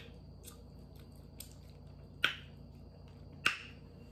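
Eating sounds from a person chewing crab meat: a few scattered sharp mouth smacks and clicks, the two loudest about two and three and a half seconds in.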